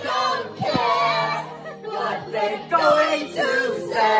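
Live singing through a handheld microphone, with several voices singing together over music.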